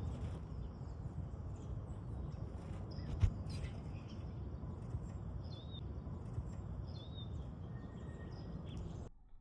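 Small birds chirping in short, scattered calls over a steady low outdoor rumble, with a single sharp knock about three seconds in; the rumble cuts out near the end.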